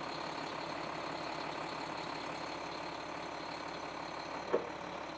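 A vehicle engine idling steadily, with a short sound about four and a half seconds in.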